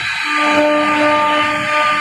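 CNC router spindle motor whining steadily as its bit cuts a pocket into a wooden panel, with the hiss of the cut beneath the whine.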